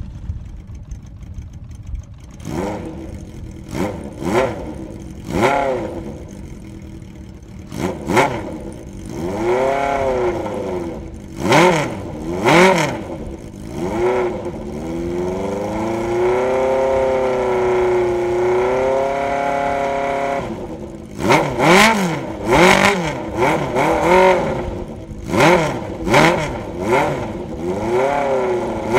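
1980 Honda CB750C's air-cooled DOHC inline-four running through a Carpy's 4-into-1 exhaust with the baffle in, blipped repeatedly from idle. The revs rise and fall in short blips, are held higher for about five seconds in the middle, then come in a quick run of blips near the end.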